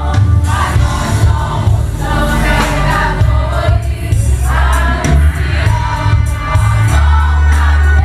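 Live gospel worship music: a group of voices singing over a band with heavy, steady bass.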